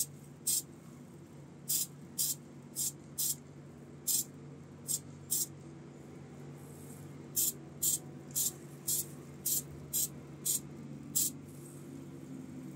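Aerosol can of Diton clear gloss lacquer sprayed in short bursts, about sixteen quick hisses in two runs with a pause of a second or so in the middle, laying a clear coat on a small die-cast car body. A faint steady low hum underneath.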